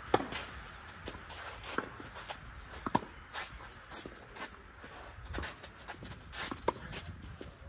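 Tennis rally on a clay court: sharp pops of racket strings hitting the ball, the loudest right at the start, about three seconds in and near the end, with fainter ball knocks between them. Footsteps shuffle and scuff on the clay between shots.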